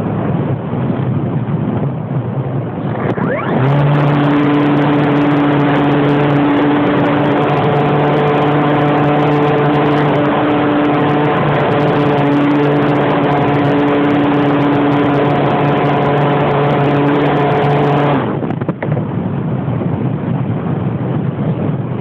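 Light aircraft's propeller engine in flight with wind rush over the microphone. About three seconds in, the engine note rises into a steady droning hum that holds until near the end, then drops away, leaving the wind rush.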